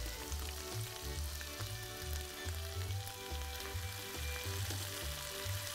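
Olive and anchovy sauce sizzling in a hot frying pan as cooked spaghetti is lifted in from the pot, under background music with a steady beat.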